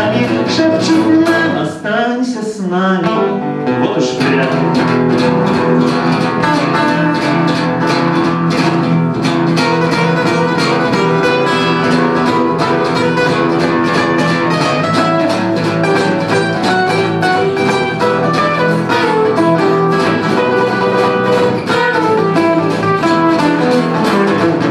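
Acoustic guitar strummed briskly and steadily as accompaniment to a live song, with a short dip in level about two seconds in.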